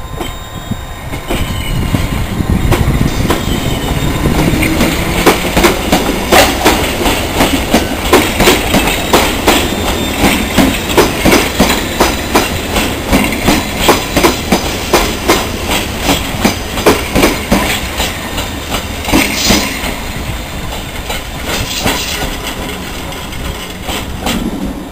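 London Underground District line train running along the platform and moving away, its wheels clacking over the rail joints about one to two times a second over a continuous rumble, the clacks dying away near the end.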